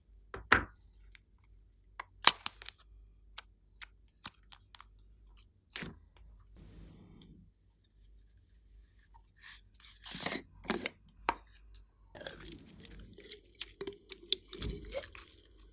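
Hands kneading and stretching glossy slime: sharp, sticky clicks and pops scattered through the first half, then longer spells of wet squishing and crackling from about ten seconds in.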